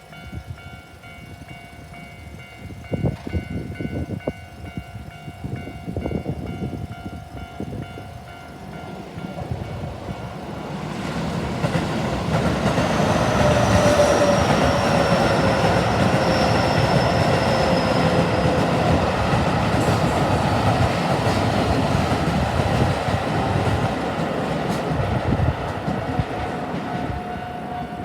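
Japanese level-crossing alarm ringing steadily, with a few knocks, then a Keio Line electric train passing over the crossing: a loud rumble of wheels on rails with a tone that slides slowly down in pitch. As the train noise eases near the end, the crossing alarm is heard again.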